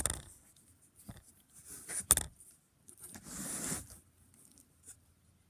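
Small metallic clicks and a short scrape as the loosened staging-unit drive motor is shifted by hand to slacken its chain.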